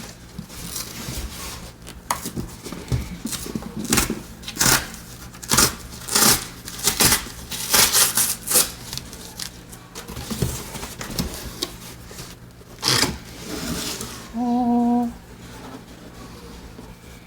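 Cardboard and plastic product packaging being worked open by hand: repeated short scraping, tearing and rustling noises. A short hummed note comes about fourteen seconds in.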